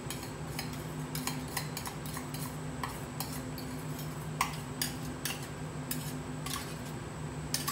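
A metal spoon scraping and tapping a small steel-and-copper serving dish: a run of light, irregular clicks over a steady low hum.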